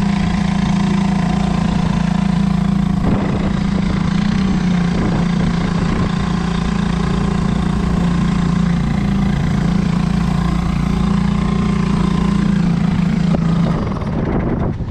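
Sailboat's engine running steadily at an even pitch, its hum dropping away near the end.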